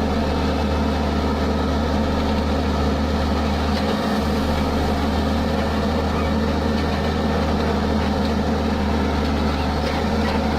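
Case backhoe loader's diesel engine running steadily, with a brief dip in its low hum about four seconds in.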